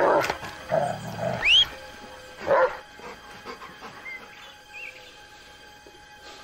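A dog barking a few times, with short sharp barks near the start and again about two and a half seconds in.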